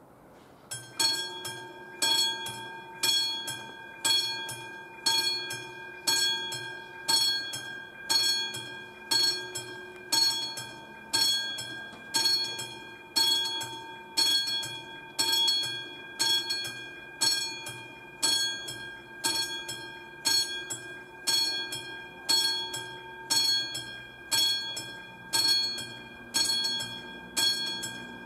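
The classic warning bell of an AŽD 71 railway level-crossing signal starts about a second in and is struck about once a second, each strike ringing out before the next. It is the crossing's warning that a train is approaching.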